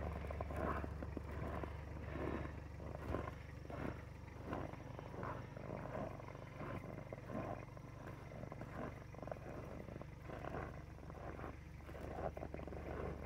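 Toyota Hilux LN110's diesel engine idling steadily while still cold from a −22 °C cold start, with short irregular crunches of footsteps in snow over it.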